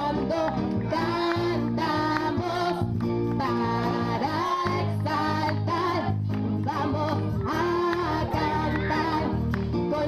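Singing with guitar accompaniment: a song sung over steady strummed chords.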